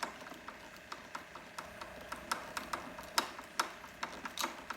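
Screwdriver driving screws into the housing of a Bauer 2000 psi electric pressure washer: an irregular run of sharp clicks and ticks, several a second.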